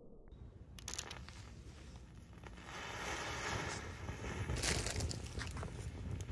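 A small pyrotechnic charge burning on concrete, fizzing and crackling, louder from about three seconds in, with a sharp crack a little before five seconds. Wind rumbles on the microphone underneath.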